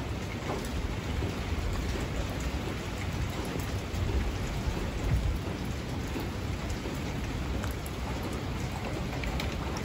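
Steady rain falling, with scattered drops ticking on nearby surfaces over a low, continuous rumble.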